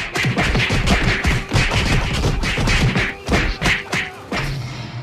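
A rapid barrage of Hanna-Barbera cartoon sound effects, whacks, bonks and crashes standing in for a flurry of punches, several hits a second. The barrage thins out near the end.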